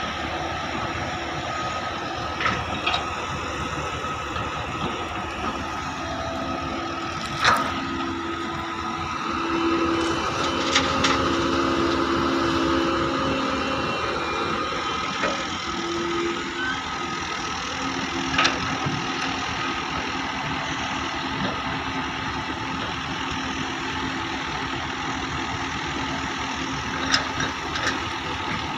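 Diesel engine of a JCB excavator running steadily under work, with a few sharp knocks; the loudest knock comes about seven and a half seconds in.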